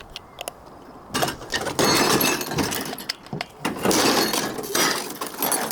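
Clicks, clinks and rattles of hard plastic parts as a 3D-printed pistol is handled and a round is loaded into it.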